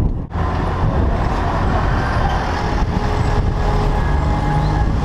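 Road traffic on a busy town street, heard from a moving bicycle: a steady low rumble of car engines and tyres.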